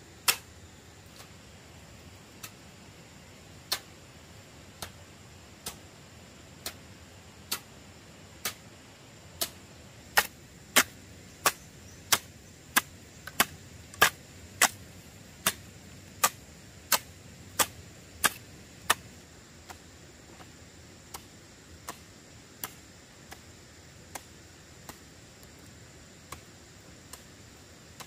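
A series of sharp, short strikes, about one every second. They come a little quicker and loudest in the middle, then soften again.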